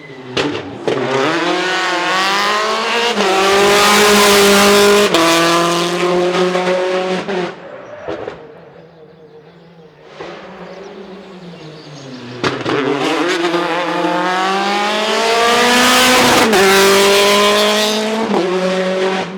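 Two rally cars passing one after the other at full throttle. Each engine revs up and shifts up twice, sharply, before fading away.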